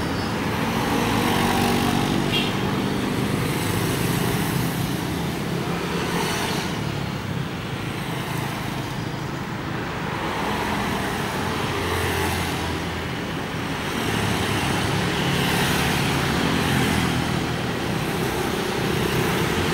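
Road traffic passing by: engines and tyre noise that swell and fade as vehicles go past.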